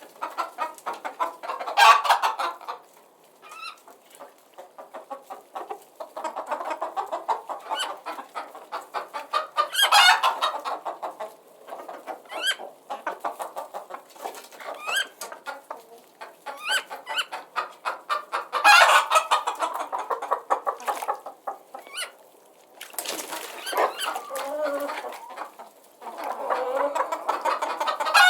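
Several chickens clucking continuously, with louder bursts of calling about 2, 10 and 19 seconds in and short high-pitched chirps between.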